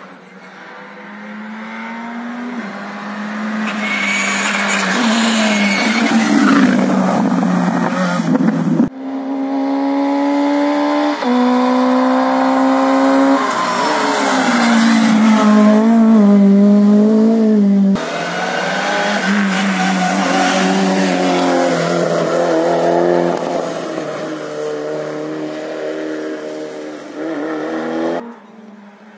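Rally cars driven hard on a tarmac special stage, the engine note climbing and dropping with gear changes and throttle lifts. It comes in three separate passes, each one cut off abruptly.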